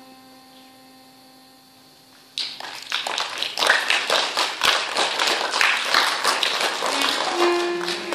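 A held note dies away into a hush. About two seconds in, an audience starts clapping and keeps it up. Near the end a few bowed viola da gamba notes sound under the applause.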